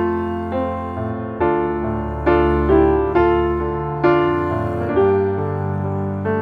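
Background music: a piano or electric piano playing a slow melody over sustained chords, notes struck and fading.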